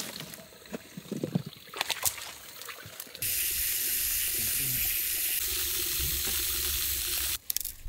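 A fine spray of water showering onto seedlings and damp soil: a steady hiss that starts about three seconds in and cuts off suddenly shortly before the end. Before it there are a few faint clicks and knocks.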